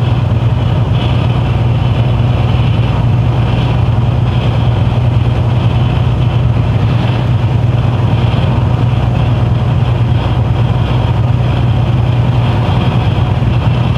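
Heavy truck's diesel engine and tyre and road noise heard from inside the cab at steady motorway cruising speed: an even, unchanging low drone.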